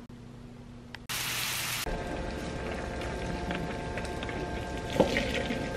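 Hot water poured out of a steaming pot into a kitchen sink: a steady splashing hiss that starts with a brief louder rush about a second in, with a single knock near the end.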